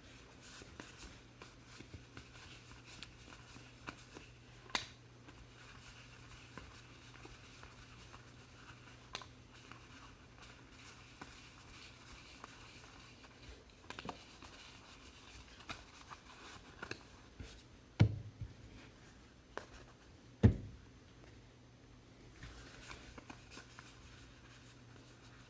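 Trading card packs and cards being handled: faint rustling and small ticks of wrappers and card stock over a steady low hum, with two louder knocks about eighteen and twenty seconds in.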